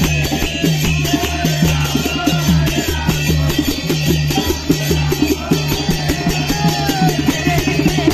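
Kirtan music: a djembe and small brass hand cymbals (karatals) played in a steady, fast rhythm, with a crowd of voices chanting along.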